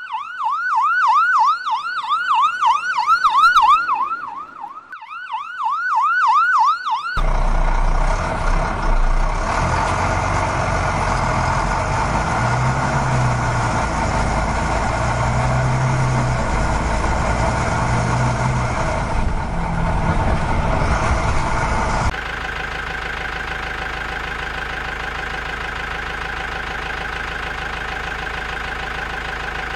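An ambulance siren sounds in quick, repeating rising-and-falling sweeps, breaking off briefly about five seconds in. About seven seconds in it gives way to a heavy vehicle engine running steadily, which drops to a quieter, even running about two-thirds of the way through.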